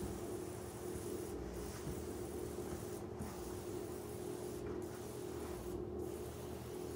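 Hand pump-up sprayer hissing as it mists encapsulating carpet cleaner onto the steps, the hiss breaking off briefly about every second and a half. A steady low hum runs underneath.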